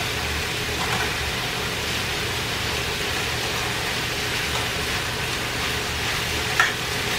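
Diced chicken sizzling steadily in butter in a skillet, with a fork stirring the pieces and now and then tapping the pan.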